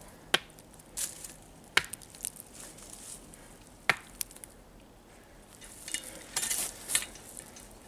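Cut birch rounds being set one on top of another on a log, giving several sharp wooden knocks over the first four seconds, followed by a brief rustling a couple of seconds later.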